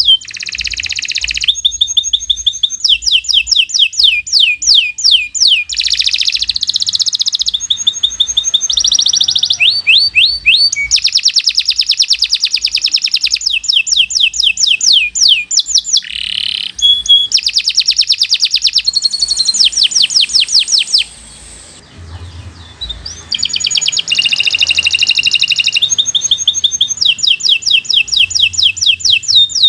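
Domestic canary singing a long, continuous song of rapid trills: each phrase is a fast run of one repeated high note, switching to a new phrase every second or two, with a brief pause about two-thirds of the way through.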